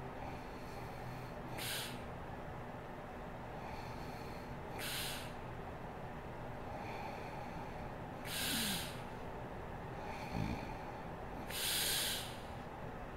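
A sleeping woman breathing heavily, an airy breath about every three seconds, four in all, the last two loudest. A short low snort comes between the last two breaths.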